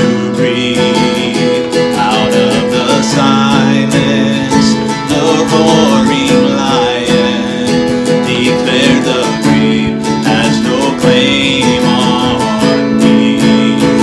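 A man singing a worship song to his own acoustic guitar accompaniment.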